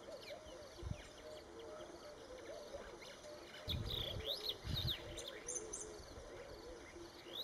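Birds calling throughout, a run of repeated low arching notes with sharp high chirps and glides around the middle. A few brief low thuds about a second in and again around four to five seconds in are the loudest moments.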